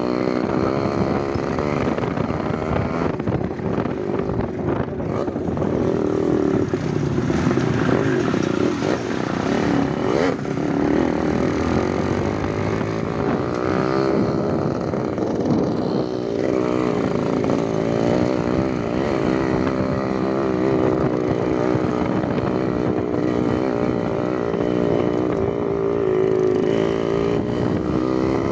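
Small motorcycle engine running as it is ridden over a rough dirt road, its pitch rising and falling continually with the throttle over a steady noisy rush of the ride.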